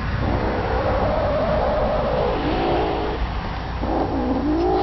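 Tabby kitten growling over a chipmunk carcass, guarding its prey from another kitten: a long, wavering growl-yowl for about three seconds, then a second one starting near the end.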